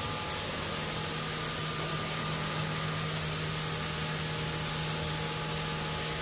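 Steady rushing hiss of water running through an open ProfiDrum drum filter on a koi pond system, over a faint, even pump hum.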